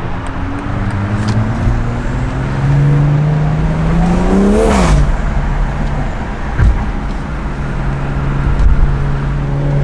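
A car drives past with its engine note climbing as it approaches, then dropping sharply as it goes by, about five seconds in. Steady road and traffic noise runs throughout, with an engine humming evenly near the end.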